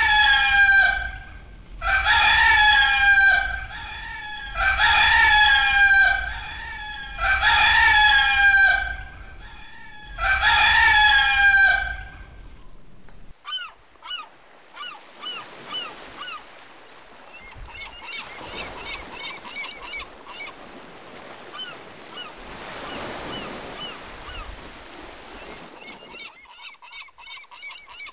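A rooster crowing five times in a row, each crow loud and about a second and a half long, sliding down in pitch. About halfway through, the crowing stops and quieter, shorter bird calls follow over a soft wash of noise.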